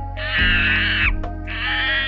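Two long, rough animal calls in a row, the second starting about a second and a half in, over steady background music.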